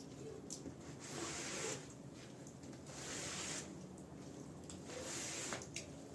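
Wet rug being scraped in even strokes, about one every two seconds, each a short rasping swish, with a light click now and then.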